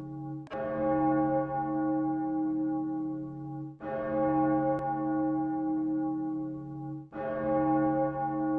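A deep bell tolling slowly: three strokes about three seconds apart, each ringing on and fading until the next.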